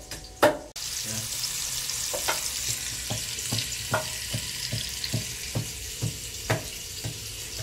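A couple of sharp knocks of pounding in a mortar, then a steady sizzling hiss of food frying in hot oil, with regular knocks about twice a second over it.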